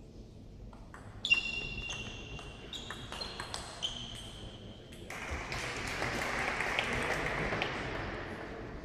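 Table tennis rally: about a dozen quick, sharp ball hits on bat and table, each with a short high ring, over about three seconds. This is followed by a few seconds of spectators applauding the point.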